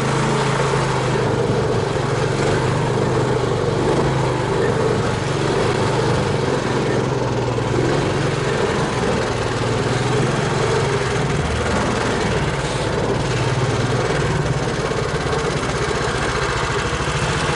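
Engine of a homemade low-pressure-tyre all-terrain vehicle (karakat) running steadily, its pitch holding nearly level with small shifts near the middle.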